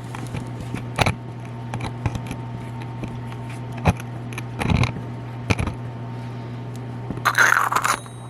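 Small metal parts and tools being handled: scattered sharp clicks and clinks, then a short scraping clatter near the end, over a steady low hum.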